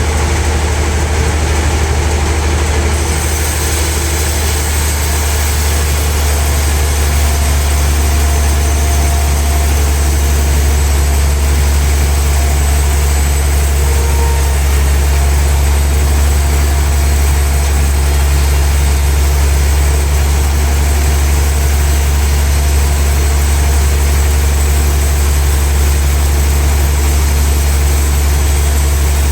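Sawmill machinery running steadily: a loud, constant low hum with a noisy haze above it.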